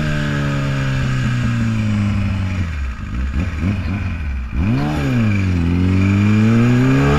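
Motorcycle engine dropping in pitch as the bike slows, running quieter and unsettled for a couple of seconds, then a quick rise and fall in revs about four and a half seconds in. Near the end it pulls away with a steady rising pitch under hard acceleration, with wind rushing over the microphone.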